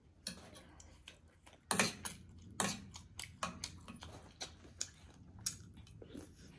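Close-up eating sounds: chewing a momo dumpling, with wet mouth smacks, and a spoon and fork clinking against a small steel bowl. Together they make a string of sharp clicks, the loudest about two seconds in.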